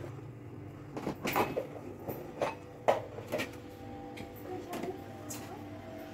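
A handful of separate light knocks and clunks as a greased and floured round metal cake tin is handled and tilted on a kitchen counter.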